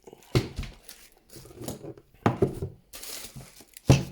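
Modular power-supply cables and their packaging being handled: three sharp knocks or clicks and a brief plastic rustle.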